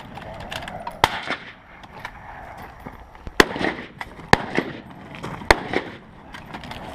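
Rifle shots from several shooters on a firing line: four loud, sharp reports at uneven intervals about a second or two apart, with fainter shots between them.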